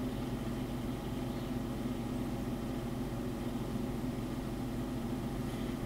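Steady low machine hum made of several even tones, unchanging throughout.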